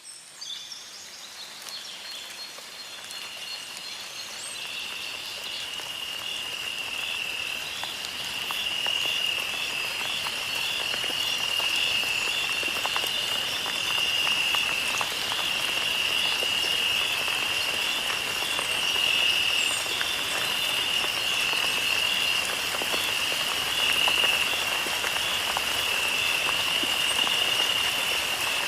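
Nature ambience: a steady, high, evenly pulsing chorus of calling animals over a fine patter like rain. It fades in from silence over the first several seconds, then holds steady.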